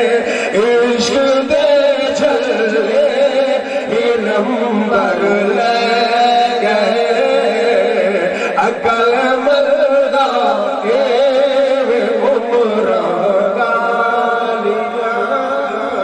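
A man's voice chanting a devotional verse in a long, wavering melodic line, held without breaks in the way of sung recitation rather than speech.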